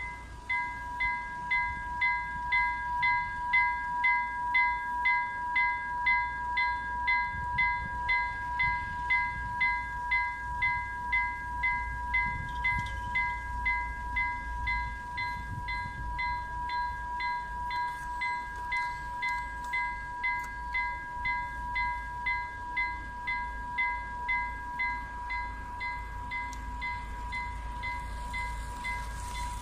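Railway level crossing warning bell ringing continuously, a strike about twice a second over a steady ringing tone.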